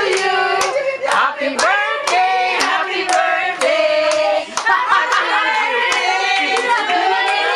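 A group singing together with steady hand clapping in time, about two claps a second.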